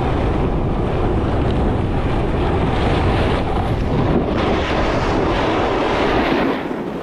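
Wind rushing over a selfie-stick camera's microphone as a snowboard slides and carves down packed snow, a steady rumbling hiss that eases a little near the end.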